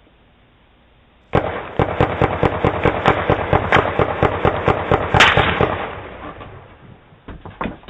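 A string of firecrackers going off: rapid sharp cracks, about five or six a second, starting about a second in. They run for around four or five seconds, then thin out to a few scattered pops near the end.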